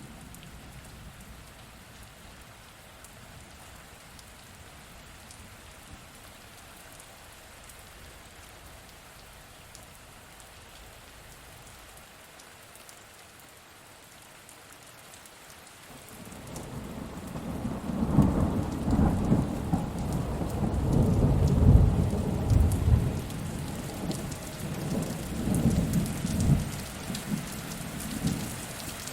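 Steady rain falling, with thunder rolling in about halfway through: a long, loud low rumble that swells and fades in several waves.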